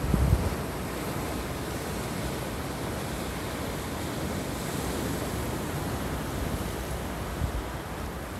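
Sea surf breaking around boulders and washing up a pebble shore as a steady rushing noise. Wind buffets the microphone in the first moment.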